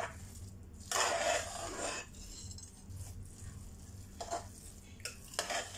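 Metal spoon stirring soft, freshly pressure-cooked rice and moong dal in a pressure cooker, scraping against the pot: one longer scrape about a second in, then a few short scrapes near the end.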